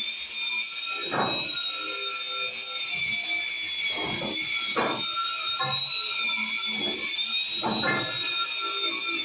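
Angle grinder fitted with a wire wheel brush, its motor giving a steady high-pitched whine as it scrubs rust off a steel pipe. Irregular rasping bursts come each time the brush bites into the metal.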